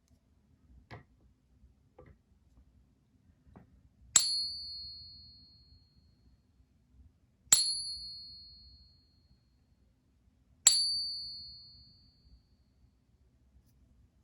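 Silver bullion coin being ping-tested: tapped three times, each tap giving a clear high ring that dies away over about two seconds, with a few faint handling clicks before the first. The sustained ring is what the test listens for to confirm a genuine fine-silver coin.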